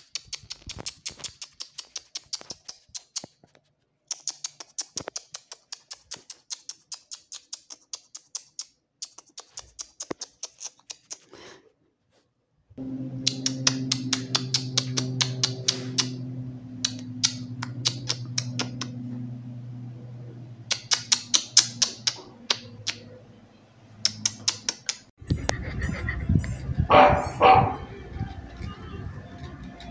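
A fast series of sharp clicks, like typing, runs for about eleven seconds. After a short gap a steady low hum comes in with more clicks, and near the end a dog barks twice.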